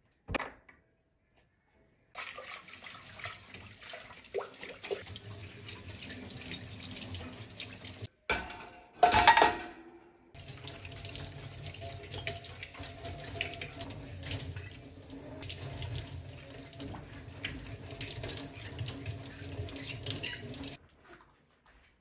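Kitchen tap running in a steady stream into a stainless steel sink while a glass cup and a spoon are rinsed under it. There is a brief louder burst about nine seconds in, and a single click just after the start.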